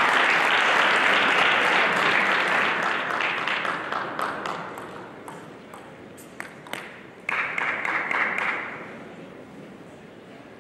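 Spectators applauding after a point in a table tennis match, the clapping fading out over about four seconds. A few sharp clicks of a celluloid table tennis ball bouncing follow in the hall.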